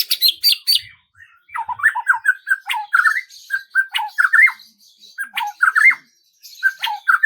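Birds calling and singing: a quick burst of high chirps in the first second, then repeated phrases of short, squawky notes with brief pauses between them.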